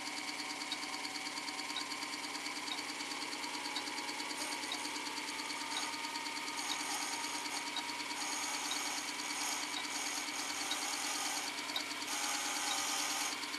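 Small electric motor of a watchmaker's lathe running steadily with a fast, fine rhythm. From about four seconds in, a higher whine and a rasping noise join it. Faint small ticks come about once a second.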